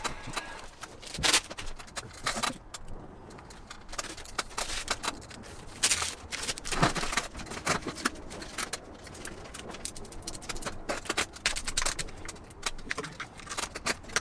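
Irregular scraping, rustling and clicking as vinyl wrap film is handled and worked onto a car roof, with a few louder scrapes about a second in and around six and seven seconds in.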